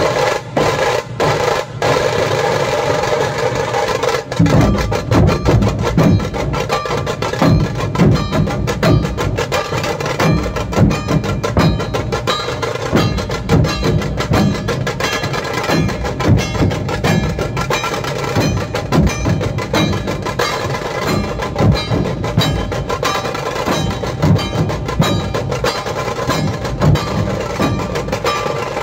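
Dhol-tasha ensemble playing: many large Puneri barrel dhols beaten with a wooden stick on one head and a thin cane on the other, in fast unison rhythms, with tasha snare-drum rolls over them. The heavy low dhol beats come in fully about four seconds in and run dense and loud from there on.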